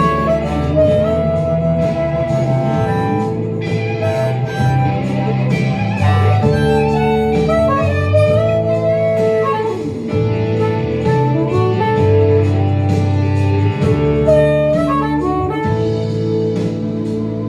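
Instrumental break in a roots-rock song: a harmonica solo with held, bending notes over guitar and a steady drum beat.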